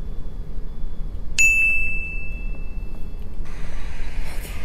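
A single high, metallic ding that rings on for about two seconds before fading, followed near the end by a faint steady hiss.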